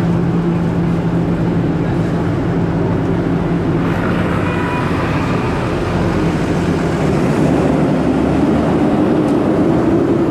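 Loud, steady wind noise rushing over the microphone of a moving electric scooter, mixed with street traffic. A low, steady drone runs under it and stops about four seconds in.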